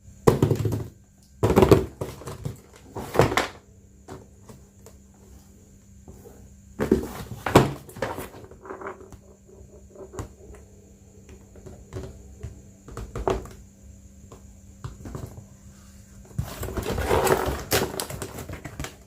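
Handling noises while unboxing a toy RC car: scattered knocks and rustling of the box and packaging, with a longer stretch of rustling near the end, over a faint steady hum.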